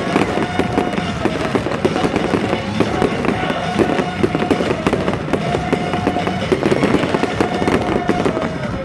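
Fireworks going off in a dense barrage, many bangs and crackles a second with no let-up, while music plays over them.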